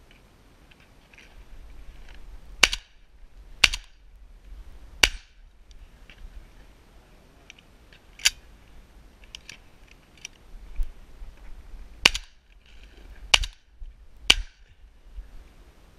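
Shotgun firing at flying doves: about seven sharp reports at uneven gaps, some a second apart, with fainter clicks in between.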